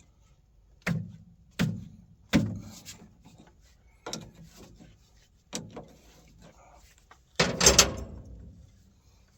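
Hand work on hydraulic fittings: a series of sharp knocks and clanks, five single strikes spaced about a second apart, then a louder rattling clatter near the end.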